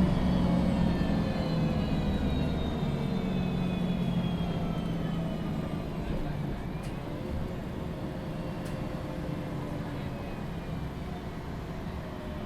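MAN NG 313 CNG articulated bus running, heard from inside the cabin. The gas engine's note falls slowly and the sound grows gradually quieter as the bus eases off and slows.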